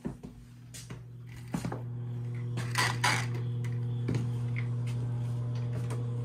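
A door latch clicks and the door opens onto the deck. A steady low machine hum with even overtones then sets in and holds, over a faint outdoor hiss, with two sharp knocks about three seconds in.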